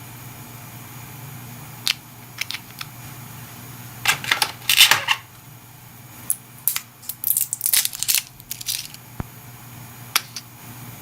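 Small plastic self-inking toy stamps and their packaging being handled: scattered clicks and clacks, with louder rustling bursts about four seconds in and again from about six to nine seconds, over a faint steady hum.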